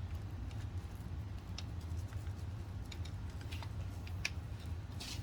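Faint scattered ticks and soft pats of seasoning being applied to a raw whole tilapia, over a low steady hum.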